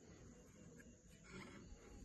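Near silence, with a faint brief noise about one and a half seconds in.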